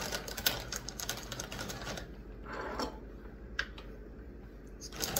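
Crinkling of a plastic tortilla chip bag as a hand rummages inside and pulls chips out: dense crackling for about two seconds, then a few scattered crinkles.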